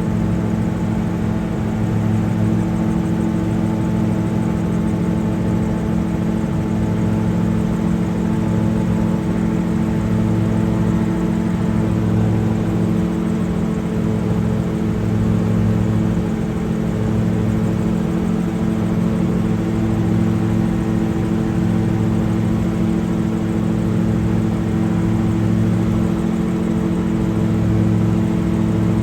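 Multirotor drone's motors and propellers running steadily, a hum of several fixed tones, with a lower tone that swells and fades every second or two.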